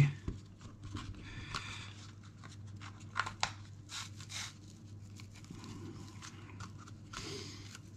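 Dry raffia being drawn through holes in a birch bark container: irregular rustling and scraping of the strand against the bark, with a few louder scratchy pulls about three to four seconds in.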